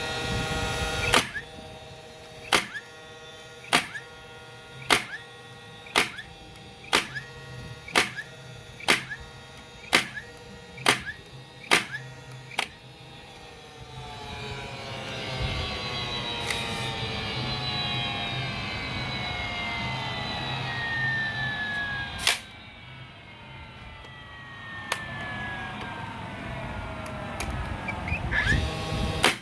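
DeWalt DCN680 18V cordless 18-gauge brad nailer firing about a dozen times, roughly once a second, each shot a sharp snap with the motor whining between shots. Then the motor whine slides slowly down in pitch as it winds down, broken by a few more single shots.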